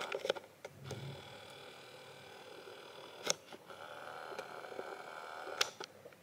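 Quiet room tone: a faint steady hum that grows a little in the second half, with a couple of soft clicks.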